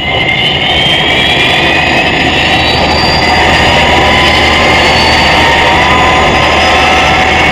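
Jet engines of a military transport aircraft running steadily as it taxis, a dense rush with high whines that climb slowly in pitch.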